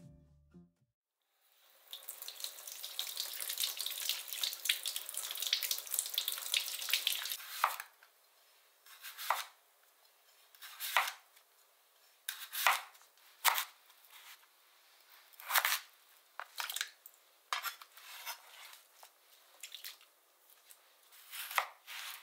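A steady crackly hiss for about six seconds, then a kitchen knife slicing through a raw sweet potato, with single sharp knocks on the cutting board every second or two. Near the end the knife slices a lemon.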